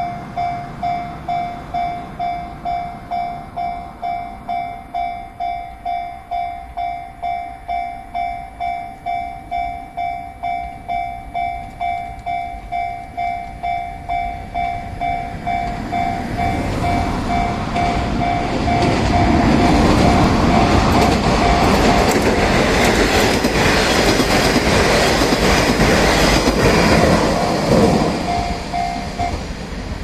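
Japanese level-crossing warning bell dinging about twice a second, while a 1200 series diesel railcar approaches and runs over the crossing. The train's engine and wheel noise builds from about halfway in, is loudest for several seconds, then fades. The bell stops just before the end.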